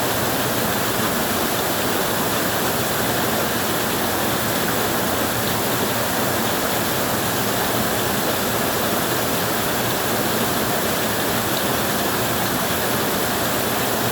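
Heavy rain falling steadily on a tin roof: a dense, even hiss with no letup.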